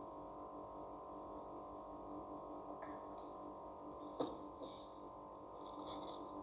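Steady electrical hum in a small room, with a single light click or knock about four seconds in.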